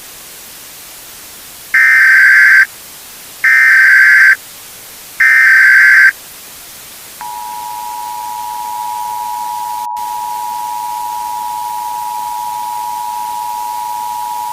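Emergency Alert System tones over a steady hiss: three bursts of digital SAME header data, each just under a second, then the steady two-tone EAS attention signal, which starts about seven seconds in and holds.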